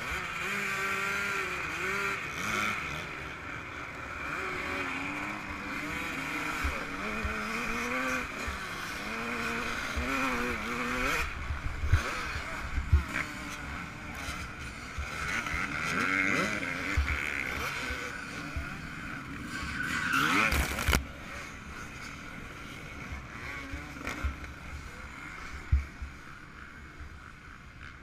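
Yamaha YZ125's 125cc two-stroke single-cylinder engine revving up and down as the motocross bike is ridden hard, with short low knocks scattered through. The engine note drops away about three quarters of the way through.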